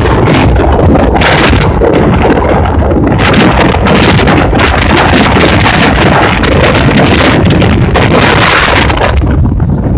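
Strong storm wind buffeting the microphone: a loud, low rumbling roar that surges and eases in gusts, with the higher hiss dropping away briefly near the end.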